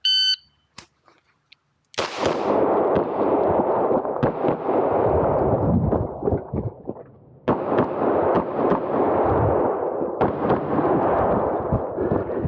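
Shot timer beep, then about two seconds later a rapid string of pistol shots fired in quick succession, with a short lull about seven seconds in before the firing resumes.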